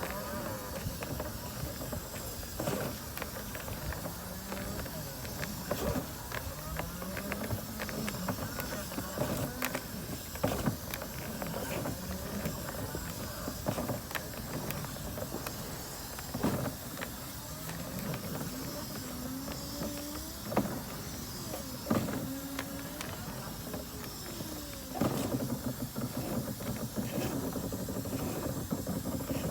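Electric motor of a dryer vent cleaning tool repeatedly speeding up and slowing down, its whine rising and falling, with sharp knocks scattered throughout.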